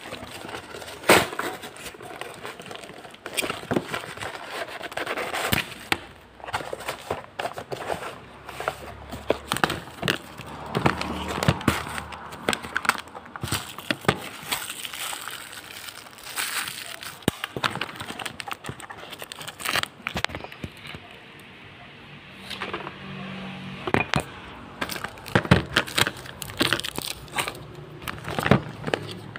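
Clear plastic packaging crinkling and rustling as it is handled, including a bag of airsoft BBs and the pistol's plastic wrap, with scattered sharp clicks and knocks.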